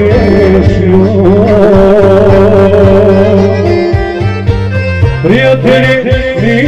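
Balkan folk song: a singer holds long, wavering notes over a steady instrumental accompaniment, with a new phrase starting about five seconds in.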